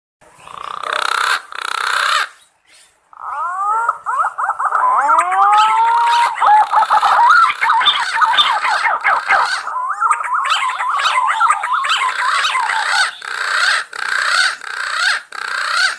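Green pigeons (punai) calling to their flock mates: many overlapping wavering, gliding whistles around one pitch. A short burst comes first, then a brief break, then unbroken calling from about three seconds in.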